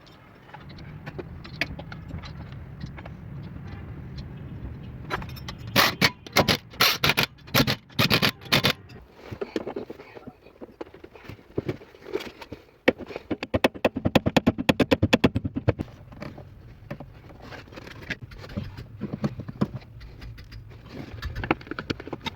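Metal clicks, knocks and scraping from hand work on a car: a cluster of loud sharp knocks a little over five seconds in, and a fast, even run of clicks, like a ratchet, around the middle.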